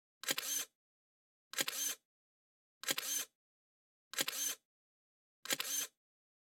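DSLR camera shutter sound repeating at an even pace, about every 1.3 seconds, five times. Each is a quick double click: a sharp snap followed at once by a slightly longer closing click.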